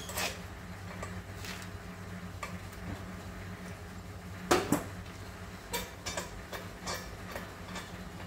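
Small metallic clinks and knocks of a regulator and fittings being handled on a welding gas cylinder, with a louder knock about four and a half seconds in, over a steady low hum.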